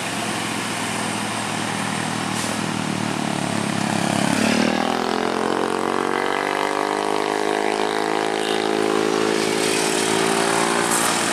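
Heavy engine and traffic noise on a hill climb. About four seconds in, a loaded Hino dump truck's diesel engine rises in pitch as it revs, then holds a steady pull uphill.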